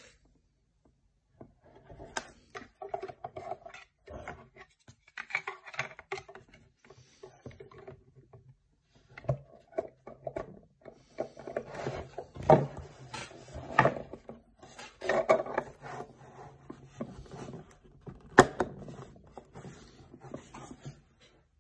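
Plastic parts of a new cordless jigsaw being handled and fitted, with a clear plastic base cover and dust adapter among them. Irregular rustling, rubbing and scraping, with a few sharp plastic clicks, the loudest about 18 seconds in.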